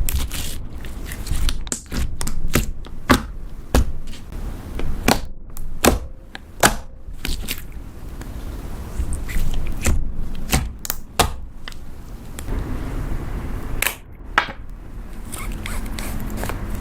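Slime being squeezed and worked by hand, giving irregular sharp pops and clicks in clusters over a low rumble.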